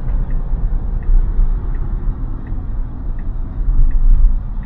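Steady low road and tyre rumble inside a moving Tesla Model Y's cabin, with no engine note. Faint ticks come about every 0.7 seconds, the turn signal set for a right turn.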